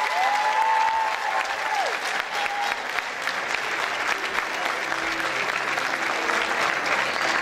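Audience applauding steadily, with a drawn-out cheer rising and falling over the clapping in the first two seconds.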